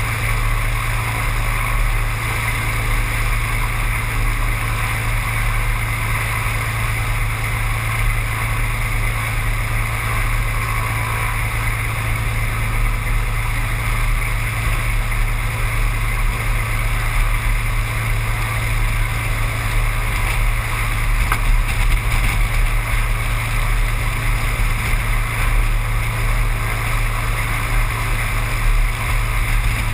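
Seaplane's piston engine and propeller running at a steady drone, with a constant low hum and no change in pitch.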